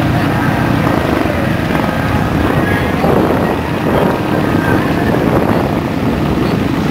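Ford F-350 mud truck's diesel engine running hard at high revs under heavy load as the truck climbs a steep hill, its loudness swelling and easing.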